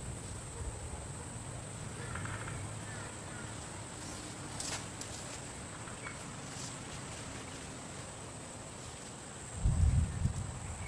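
Stormy forest ambience: a steady hiss with a thin high steady tone and a few faint ticks. About a second and a half before the end, low rumbling gusts of wind buffet the microphone.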